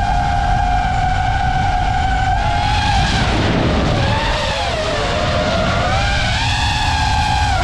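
DJI FPV drone's motors and propellers whining loudly. The pitch holds steady, then from about two and a half seconds in wavers up and down as the throttle changes.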